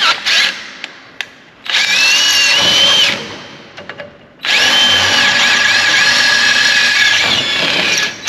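Cordless drill boring out a bolt hole in a metal part held in a bench vise, enlarging it so the bolts will line up. It runs twice: about a second and a half near the start, then a longer run of nearly four seconds from about halfway, each time with a wavering high-pitched squeal from the bit in the metal.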